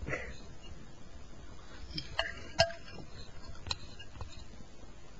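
Metal spoon clinking a few times against an ice cream bowl, two light strikes about two and a half seconds in briefly ringing, among faint scattered ticks.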